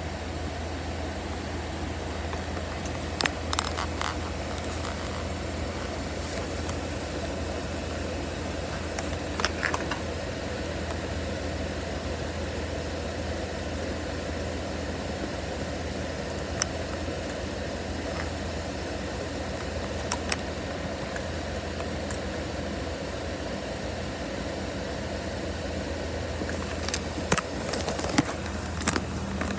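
A steady low mechanical hum with scattered sharp pops and crackles of fireworks, a cluster of them near the end.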